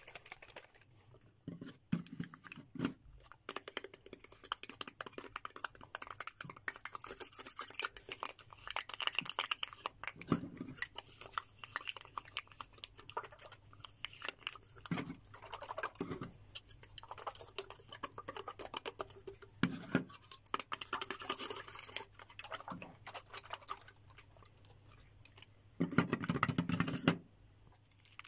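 Fingers tapping, squeezing and scratching small white plastic portion cups, a string of irregular light clicks and crackles. Near the end comes a louder, denser crinkling rustle lasting about a second.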